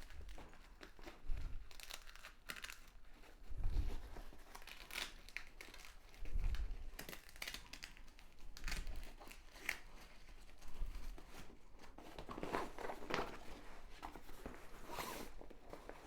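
Packaging crinkling and tearing as a carry bag is unwrapped, with a few dull handling thumps.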